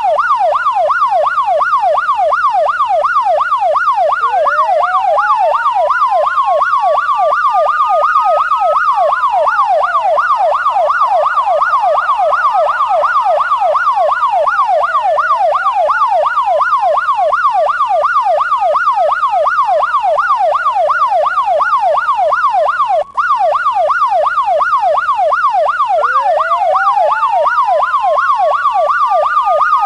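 Siren sounding a rapid yelp layered over a slower wail that rises over several seconds and falls back, again and again. It cuts out for an instant about three-quarters of the way through.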